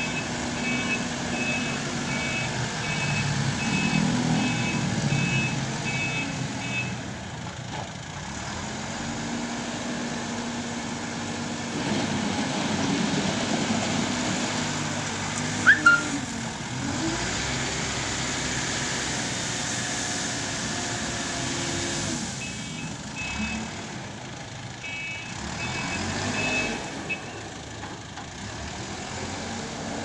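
JCB backhoe loader's diesel engine running under work, its pitch rising and falling. The reversing alarm beeps in an even series for the first several seconds and again about three quarters of the way through. A sharp double clank sounds about halfway through.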